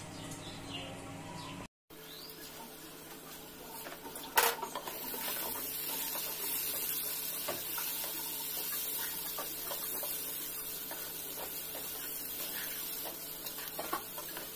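Wooden spatula stirring and scraping masoor dal (red lentils) with onions in a frying pan, over a steady sizzle. There is one sharp knock against the pan about four seconds in.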